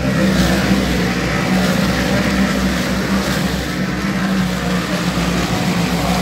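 Race car engines running at speed, a steady loud drone.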